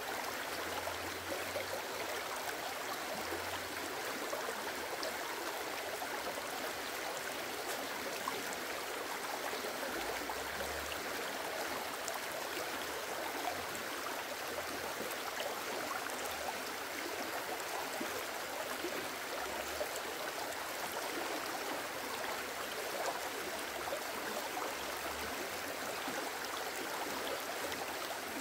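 Shallow mountain stream flowing steadily: an even rush of running water.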